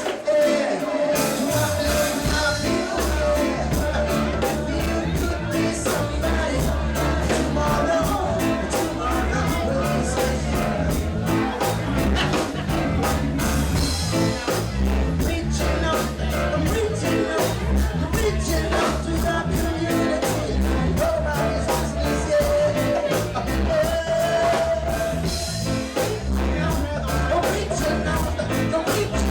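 Live reggae band playing a steady groove; the bass and full drum beat come in about a second in.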